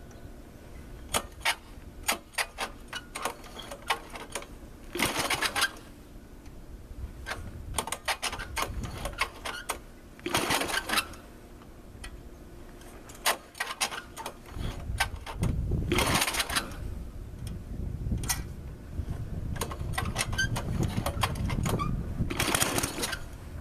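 Cold Toro SnowHound 20 snowblower engine being pull-started again and again. There are four rasping pulls a few seconds apart, scattered pops as it fires, and a low, uneven sputter in the second half as it tries to catch.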